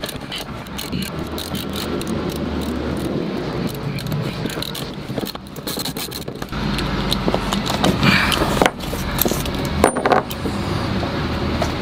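Socket ratchet clicking as seat-mounting bolts are undone from a van floor, with metal clinks of the socket and loose bolts being handled and a few louder knocks near the end.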